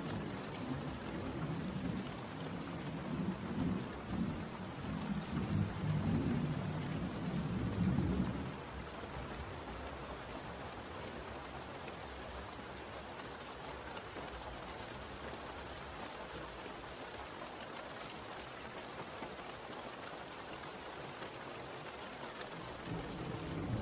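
Steady rain falling, with a deep rolling rumble of thunder through the first eight seconds or so that drops away suddenly, leaving only the even hiss of the rain; the rumble starts again right at the end.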